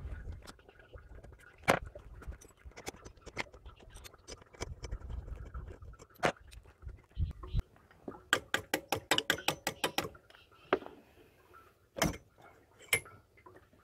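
Hand socket ratchet working nuts on engine pipe clamps: scattered metallic clicks and taps, then a quick run of ratchet clicks, about eight a second for nearly two seconds, and two louder knocks of tools on metal near the end.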